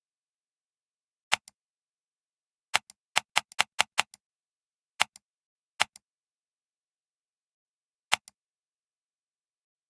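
Computer mouse button clicks, each a sharp press followed by a softer release. Ten in all, with a quick run of five in about a second around three seconds in, and dead silence between.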